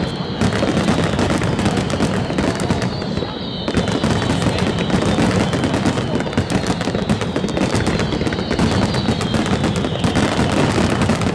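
Rapid barrage of aerial firework shells bursting, dense booms and crackles overlapping with no gap between them.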